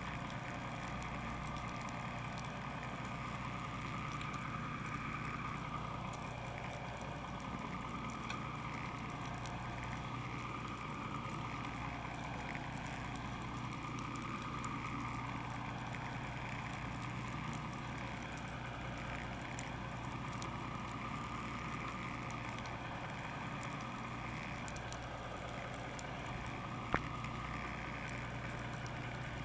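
A boat engine running steadily at a low, even drone, with one sharp click near the end.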